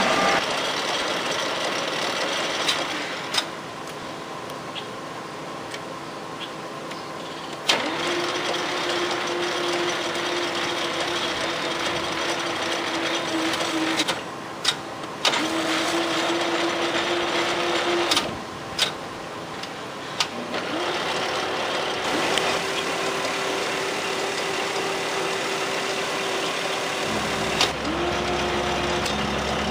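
Cincinnati Hypro metal planer running under power: a steady machine hum that stops and starts again several times, with sharp clicks and short drops in level between runs.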